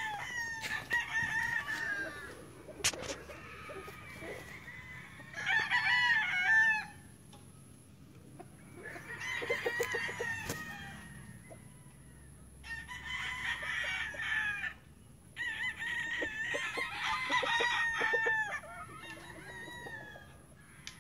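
Gamefowl roosters crowing repeatedly: about five crows, each a second or two long, a few seconds apart.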